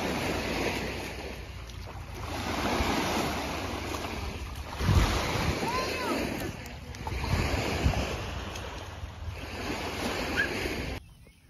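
Water waves washing against the shore, swelling and falling back every couple of seconds, with wind buffeting the microphone. The sound cuts off suddenly near the end.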